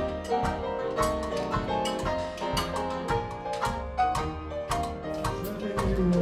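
Traditional jazz band music with a steady beat.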